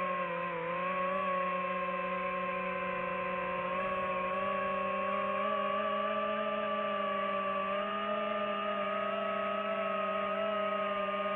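DJI FPV drone's motors and propellers whining steadily, the pitch wavering slightly with the throttle.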